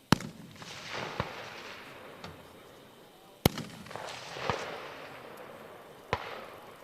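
5.56 mm rifle shots fired singly from several points along a firing line, irregularly spaced, each followed by a long rolling echo. The two loudest come right at the start and about three and a half seconds in, with fainter shots between and after.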